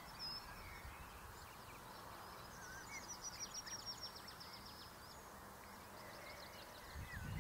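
Faint birdsong from several small songbirds: scattered thin whistles and glides, and a fast trill of rapidly repeated high notes from about two and a half to four and a half seconds in, over a steady low background rumble.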